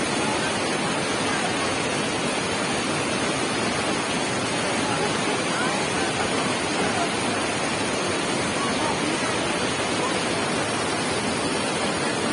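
Muddy mountain stream in flood after heavy rain, rushing and churning over boulders and a small cascade: a steady, unbroken rush of water.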